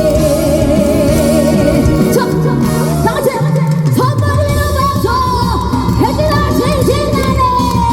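Live trot song with band backing. A long note with vibrato is held for about the first two seconds over the band, then a high held melody line carries on over the accompaniment.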